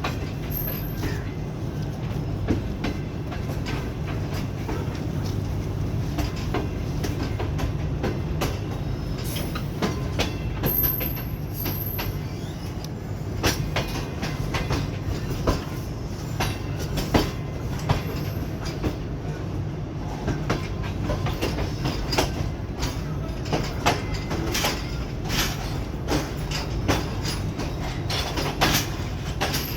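Passenger train of the 35Up Sir Syed Express rolling on the track: a steady low rumble with sharp wheel clacks over the rail joints, which come thicker in the second half.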